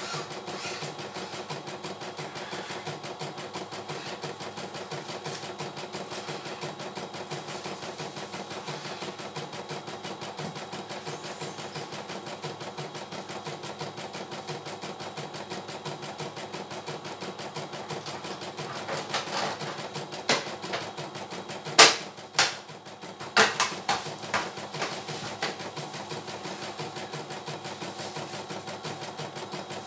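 CNY E900 computerized embroidery machine stitching, its needle running in a fast, even, ticking rhythm. About two-thirds of the way in, a cluster of loud, sharp knocks and clicks breaks in for several seconds; the loudest comes a little past the middle.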